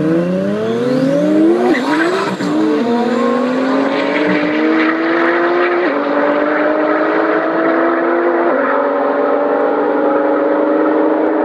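Two 1,000-plus horsepower cars, a Lamborghini Gallardo Superleggera's V10 and a Nissan GT-R's twin-turbo V6, launching together in a drag race and accelerating flat out. Their engine notes climb in pitch, each dropping back at an upshift, three shifts in all.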